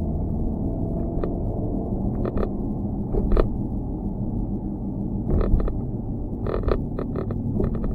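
Loose GoPro camera mount rattling in short runs of quick clicks every second or so, over a steady low rumble.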